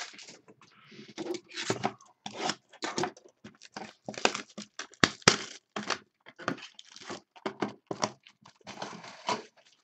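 Trading card packs being torn open and their wrappers crinkled while cards are handled: a quick, irregular run of rustles and crinkles, with a couple of sharp clicks about five seconds in.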